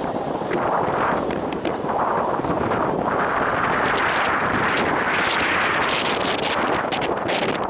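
Strong wind buffeting the microphone: a loud, gusting rumble and roar that rises and falls.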